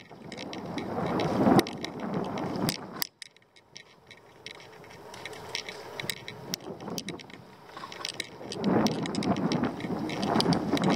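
Wind rushing over the microphone of a camera on a moving bicycle, surging and easing, with scattered small clicks and rattles from the bike on a rough road. The wind noise drops away suddenly about three seconds in and builds up again later.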